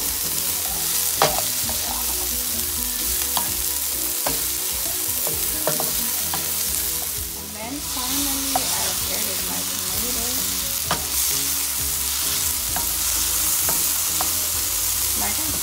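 Diced onions and bell peppers sizzling in oil in a white-coated frying pan, stirred with a spatula that scrapes and taps the pan in scattered sharp ticks. The sizzle dips briefly about halfway through as chopped tomatoes go into the pan, then carries on.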